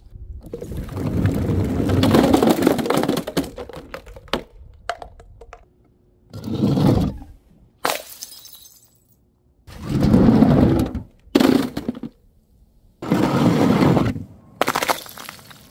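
Glass breaking: a long crunching crackle of shattering glass, then several shorter smashes and crunches a second or two apart.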